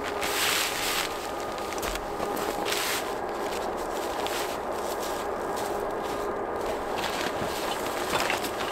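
Cheap plastic tarp rustling and crinkling as it is unfolded and spread out over snow, with louder rustles about half a second and three seconds in.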